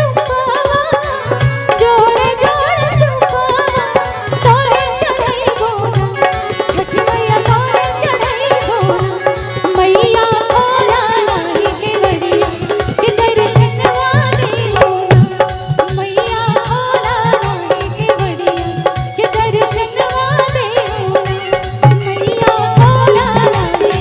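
Live Bhojpuri Chhath folk-song music: a winding melody over a steady tabla-style hand-drum beat.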